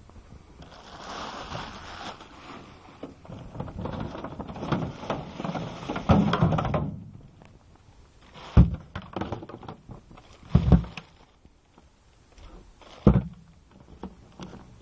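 Rustling and scraping handling noise for several seconds, then three separate thumps about two seconds apart.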